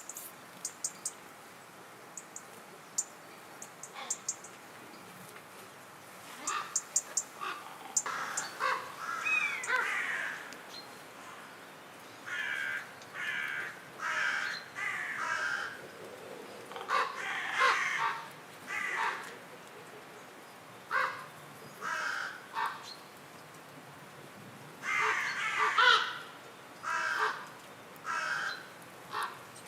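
A bird giving repeated short, rough calls in clusters with pauses between them, after a few sharp clicks in the first seconds.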